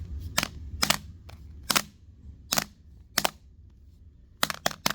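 A hammer striking an old Amazon Kindle tablet, a series of about eight sharp blows at uneven intervals, with three coming in quick succession near the end.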